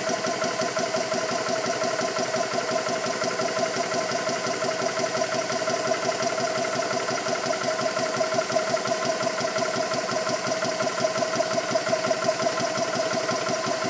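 Xisico CS3 4500 PSI portable high-pressure air compressor running under load with a steady, rapid pulsing, laboring as it fills up with pressure toward its 3000 PSI auto shutoff.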